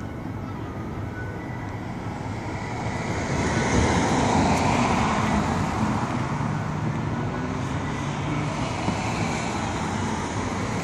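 A car drives past close by, its tyre and engine noise swelling to a peak about four seconds in and then easing off, with an engine hum holding steady for a few seconds after, over ongoing street traffic.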